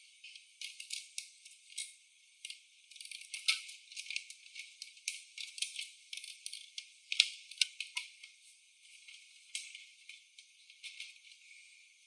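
Irregular light clicks and rattles of small hard parts being handled, a few sharper clicks standing out. The sound is thin, with no low end.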